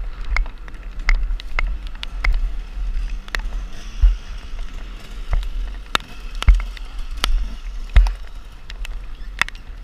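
Enduro dirt bike on a muddy forest trail heard from an on-bike camera: a low rumble with many sharp knocks and clatters as the bike bumps and scrapes through roots and branches.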